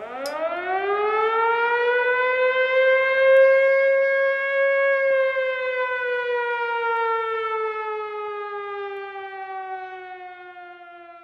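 A siren winds up quickly to a steady wail, holds it for a few seconds, then slowly winds down in pitch while fading away.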